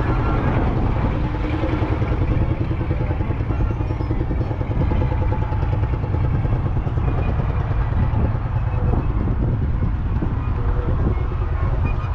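1979 Deutz D6806's 3.8-litre air-cooled four-cylinder diesel engine running steadily, with a fast, even pulsing of its firing strokes.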